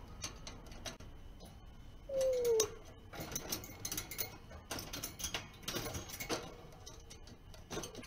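African grey parrot giving one whistle-like 'hō-o' call about two seconds in, sliding slightly down in pitch. After it come irregular clicks and rattles from the wire bars of its cage as the bird climbs them.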